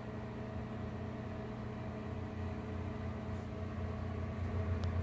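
Old GE microwave oven running: a steady hum from the running oven. It runs with its normal sound but does not heat.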